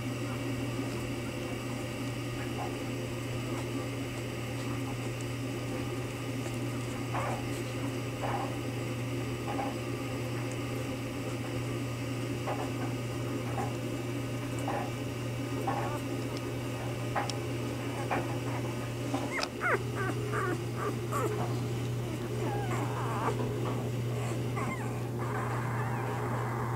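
Newborn Bernese Mountain Dog puppies giving short, scattered squeaks and whimpers as they sleep in a pile, more often about twenty seconds in, over a steady low hum.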